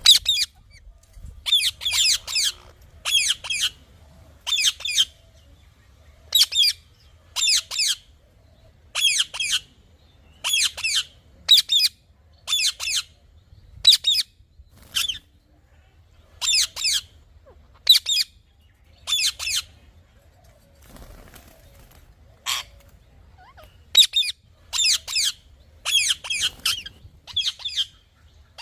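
Parrot calling in short, shrill, high-pitched chirps, repeated in quick runs about once or twice a second, with a brief lull about two-thirds of the way through.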